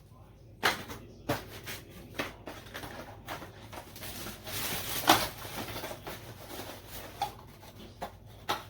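Packaging and contents being handled during an unboxing: scattered light clicks and knocks, with a longer rustle about four to five seconds in.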